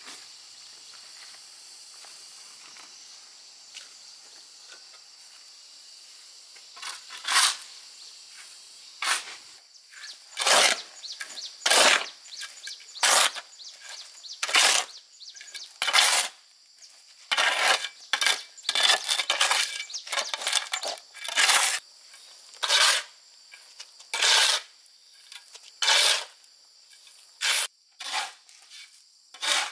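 Repeated short, harsh scraping or rubbing strokes, roughly one a second and some in quick clusters, starting about seven seconds in, over a faint steady high-pitched hum.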